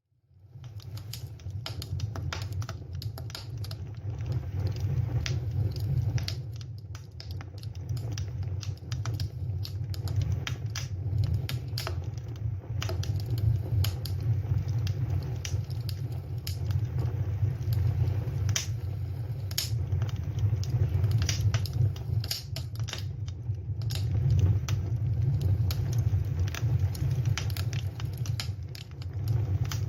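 Campfire burning with irregular sharp crackles and pops from the burning wood over a steady low rumble.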